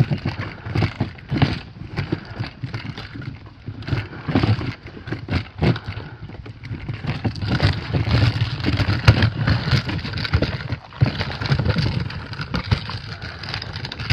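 A plastic kayak on a two-wheeled portage cart is rolled over a rocky dirt trail. The small wheels and the hull make an irregular clatter and knocking over the stones, over a continuous low rumble.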